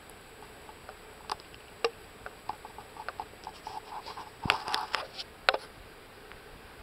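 Scattered, irregular light taps and clicks close to the microphone. They come thickest about four to five seconds in, where one sharper knock is the loudest.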